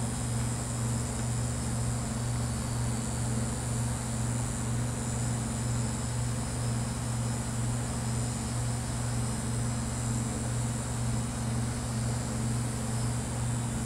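A steady low hum that stays even throughout, with no distinct knocks or other events.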